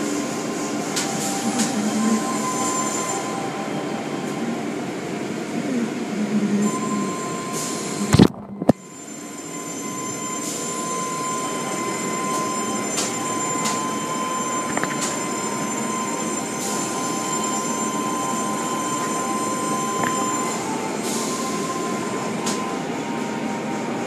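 Automatic car wash running: spinning cloth brushes and water spray working over a car, with a steady motor whine, heard through a glass window. About a third of the way in there is a short loud knock, then the sound drops out for half a second.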